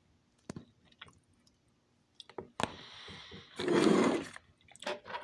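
A few sharp clicks from eating, mouth and utensil sounds, then about three and a half seconds in a loud rush of noise lasting under a second.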